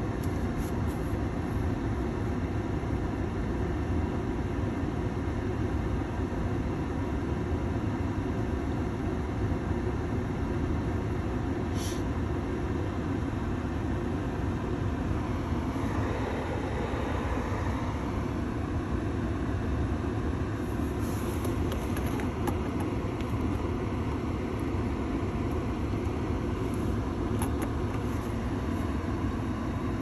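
Ford Maverick's heater blower running on full, a steady rush of air through the dash vents inside the cab, with a brief click about twelve seconds in.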